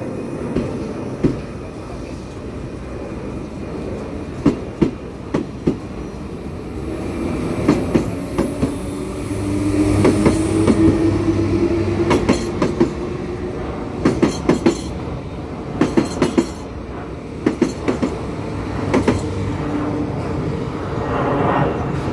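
Z 20500 double-deck electric multiple unit pulling out and accelerating past, its wheels clicking in quick pairs and small groups over the rail joints as each bogie goes by. A rising electric whine from the traction motors is heard through the middle.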